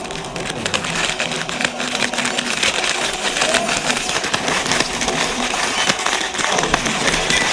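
Plastic snack bag of Hot Cheetos crinkling and crackling as it is squeezed and crushed by hand, the chips inside crunching, a dense run of fine crackles throughout.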